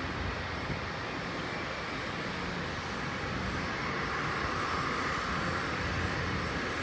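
Aircraft engines heard at a distance: a steady rush that grows a little louder about four seconds in.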